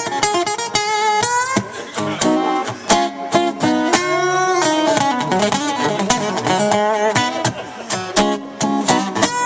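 Live band playing an instrumental break with no singing, led by guitar: picked and strummed notes, some of them bent in pitch.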